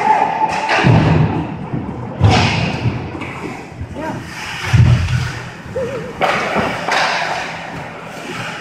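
Ice hockey play heard beside the rink boards: several heavy thuds against the boards and glass, the loudest about 1, 2 and 5 seconds in, with shouting voices between them.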